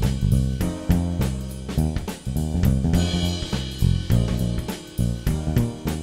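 Music with a steady drum-kit beat, snare and bass drum, over guitar.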